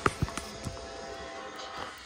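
A few light knocks and clicks in quick succession near the start, then a single one, from handling in a car cab, over faint steady tones.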